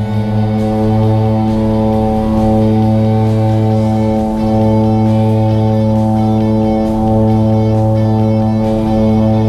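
Background music led by guitar, holding one steady droning chord with a light pulse.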